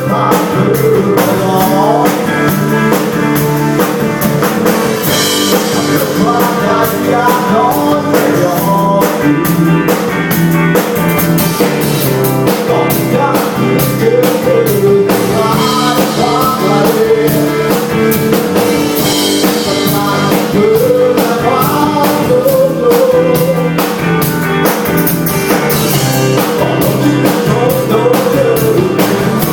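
Live rock band playing a song: drum kit with busy cymbals, electric guitar and bass under a wavering sung melody.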